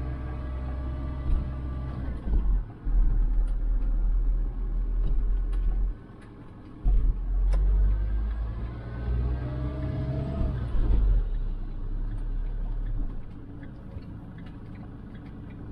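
Motorhome on the move, its engine and road rumble heard from inside the cab. The deep rumble swells and drops, and the engine pitch rises briefly near the middle.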